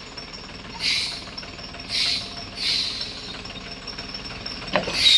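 A heavy lorry's air brakes hissing in four short puffs as it descends a steep grade on its brakes, over a low steady engine rumble. A sharp click comes just before the last puff.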